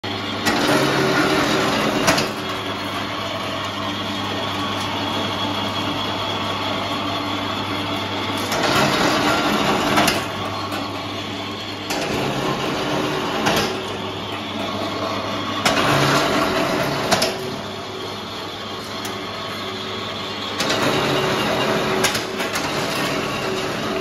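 Belt-driven wire stripping machine running with a steady mechanical hum. About five times, a louder rasping stretch of a second or two rises over the hum as cable is pulled through the rollers, most ending in a sharp click.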